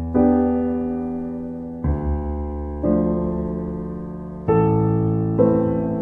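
Slow, gentle solo piano music: soft chords struck about every one to two seconds, each left to ring and fade.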